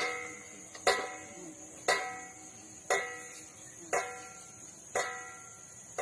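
Steady, regular metallic knocking, one strike about every second, each strike ringing briefly with a clear pitched tone. This is the strange, unexplained knocking heard in a residential building.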